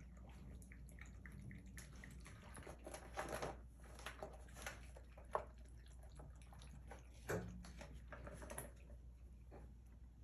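Faint, scattered light taps, scrapes and rustles of kittens scrambling and playing about. There is a cluster of louder knocks about three seconds in, a sharp click about five seconds in, and another knock a couple of seconds later.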